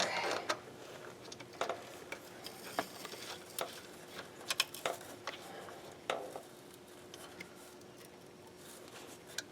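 Scattered light clicks and taps of a bolt and hand tools being handled while a starter mounting bolt is started by hand, a dozen or so irregular ticks over a faint steady hum.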